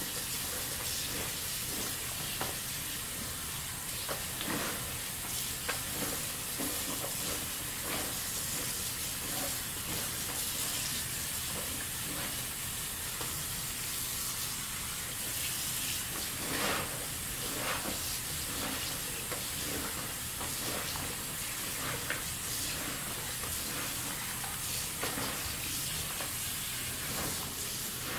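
Tap water running steadily into a kitchen sink while wet dyed silk is swished, lifted and squeezed in it, with small scattered splashes.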